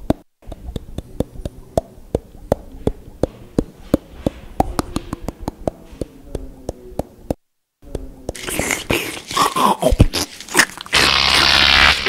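Animation sound effects of chewing and crunching: a fast, irregular run of dry clicks and crunches. After a short break come squeaky gliding noises and, about eleven seconds in, a loud steady buzzing hiss.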